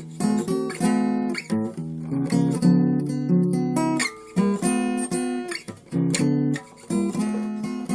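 Guitar playing an instrumental piece: plucked chords and short runs of notes in phrases, broken by brief pauses.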